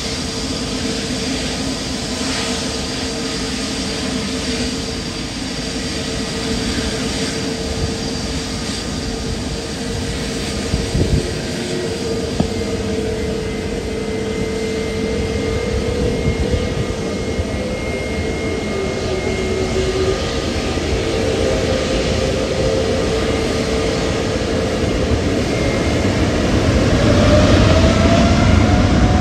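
Jet airliner engines running with a steady whine over a broad rumble, with two brief knocks partway through. Near the end the whine rises in pitch and the sound grows louder.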